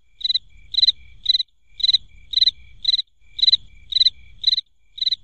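Cricket chirping sound effect: an even run of short, high chirps, about two a second. It is the comic 'crickets' gag for an empty, awkward silence, here meaning nobody turned up.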